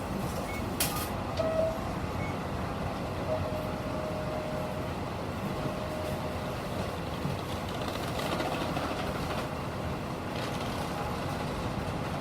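Steady running noise inside a Nishitetsu city bus: engine and road rumble, with a sharp click about a second in and a faint held tone that comes and goes.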